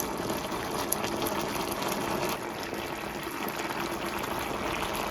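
Chicken adobo simmering in a pan: a steady bubbling hiss with a few small pops.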